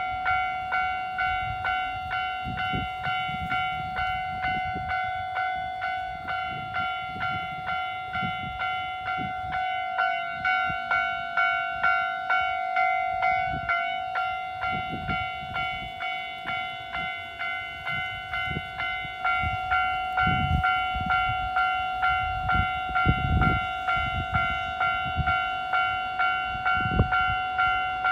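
Japanese railway level-crossing warning bell ringing, an even electronic ding repeating about one and a half times a second, with low rumbling gusts coming and going underneath.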